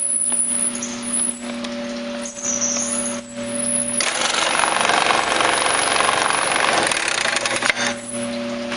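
Industrial bag-closing sewing machine: the conveyor motor hums steadily, then about four seconds in the sewing head runs for roughly three and a half seconds, a loud rapid stitching clatter as it sews a bag top closed with a plain sew, before the hum alone returns.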